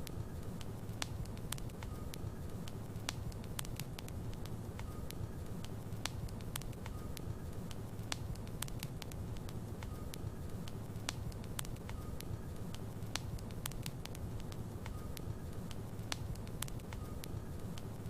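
Wood logs burning in a fireplace: a steady low rumble of flame with frequent sharp, irregular crackles and pops. A faint short high note recurs every couple of seconds.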